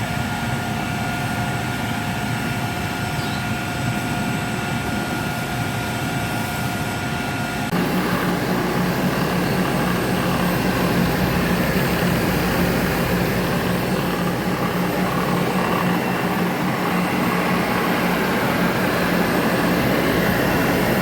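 Sweetwater regenerative air blower running with a steady whine. About eight seconds in, the sound changes abruptly: it grows louder and noisier and a low hum comes in.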